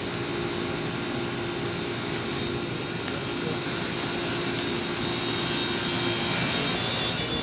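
A steady machine drone with an even rushing noise and a low hum that drops out about six and a half seconds in.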